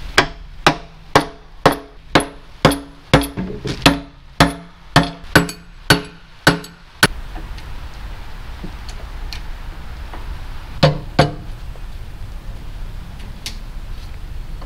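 Hammer blows ringing on the metal transmission cover of a 1942 Farmall M, about two a second for some seven seconds, then a quick pair of strikes about eleven seconds in.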